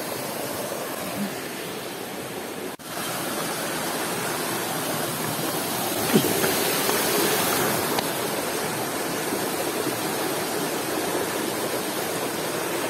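Rocky forest stream rushing steadily over boulders in small cascades. The sound breaks off for an instant about three seconds in and comes back a little louder.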